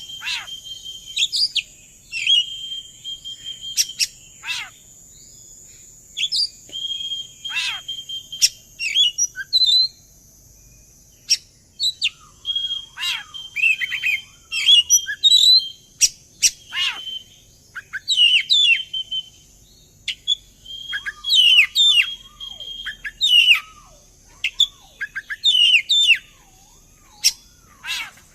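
Oriental magpie-robin (kacer) singing: a varied, loud song of held whistled notes, quick downward-sweeping notes and sharp clicks, delivered in repeated bursts with short pauses between phrases. A faint steady high hiss runs underneath.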